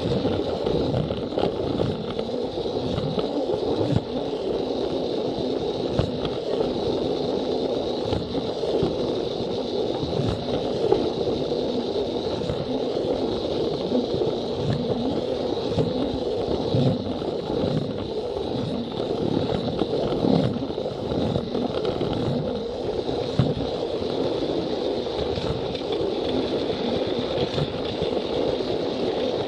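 Battery-powered Plarail toy train running on plastic track: its small motor whines steadily at a high pitch over the rolling rumble of the wheels, with frequent clicks and clatter as it passes over the track joints.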